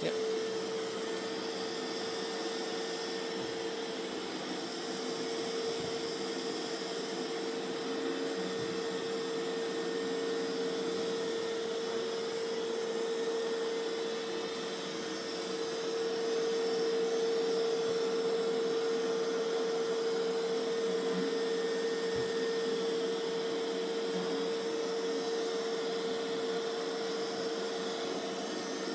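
Mova Z60 robot vacuum's suction motor running at ramped-up suction: a steady whine over a hiss of airflow.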